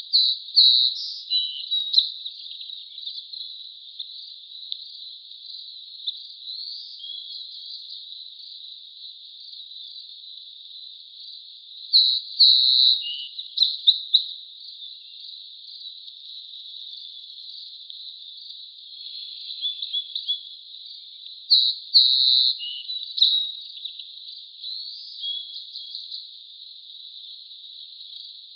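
A steady chorus of insects, crickets, with a bird singing short warbled phrases over it three times: at the start, about 12 seconds in, and about 22 seconds in.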